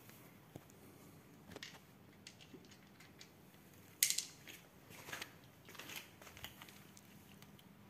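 Cat crunching dry kibble from a thin plastic tray, with faint scattered clicks and crackles of the plastic; the loudest crackle comes about four seconds in.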